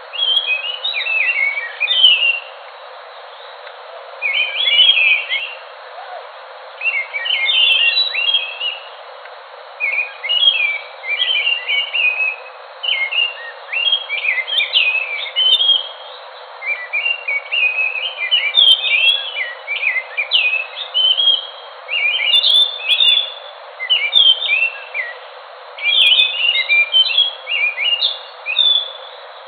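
Ground thrush (anis) singing: short phrases of quick, varied whistled notes, repeated every two to three seconds over a steady hiss.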